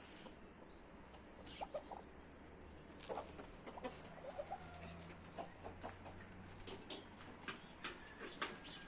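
Chickens clucking softly, with short scattered calls and light ticks throughout.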